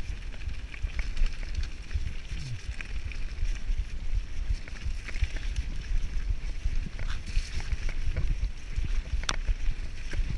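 Mountain bike rolling fast down a dirt forest trail: wind buffeting the microphone in a fluctuating low rumble, tyres running over dirt and leaves, and scattered rattles and clicks from the bike, with a sharper knock near the end.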